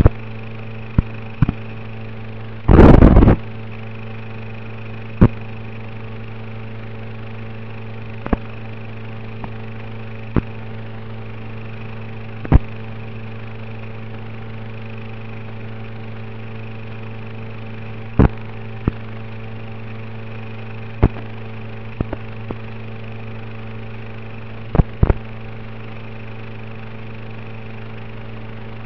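Steady electrical buzzing hum, with sharp irregular clicks and pops and a loud burst of crackling static about three seconds in. This is the audio track of an analog FPV video link as recorded by a goggle DVR.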